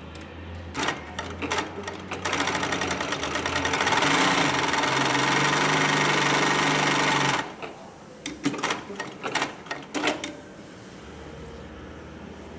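Hightex 9517UL industrial zigzag sewing machine stitching heavy sailcloth in a three-step zigzag. A few clicks over a low hum come first, then about five seconds of continuous rapid stitching. A scatter of clicks and knocks follows as it stops, and a low hum remains near the end.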